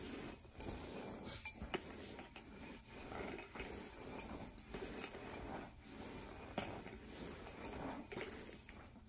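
Small terracotta flower pots being shuffled upside down across a carpet: a steady scraping and sliding, broken by many sharp clinks as the clay pots knock together.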